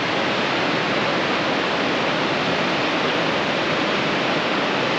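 A waterfall rushing: a steady, unbroken wash of falling water.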